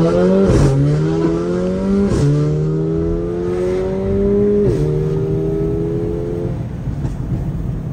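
Mercedes-AMG 45's turbocharged four-cylinder engine, heard from inside the cabin, pulling hard under acceleration through the gears: the engine note climbs steadily, drops sharply at three upshifts, each with a short crack, and eases off near the end.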